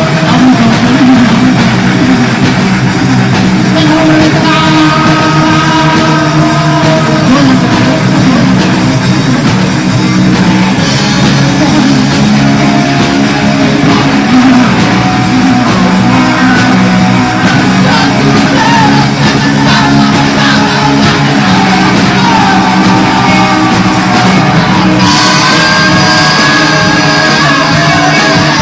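A punk rock band playing live on drums, bass and electric guitars, with singing. Loud and steady throughout; near the end a brighter, higher line comes in on top.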